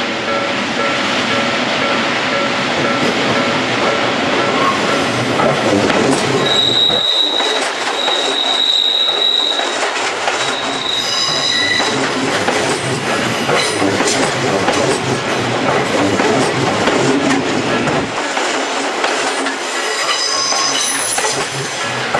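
Odakyu 3000 series electric train passing slowly over a level crossing, with steady wheel-on-rail noise. A high, steady squeal from the wheels runs from about seven to twelve seconds in and comes back briefly near the end. The crossing's warning bells ring in an evenly repeating pattern, plainest in the first few seconds before the train covers them.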